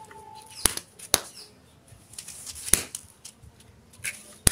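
Paper toy roll caps going off one after another in sharp, irregular pops: four loud ones and several fainter cracks between them.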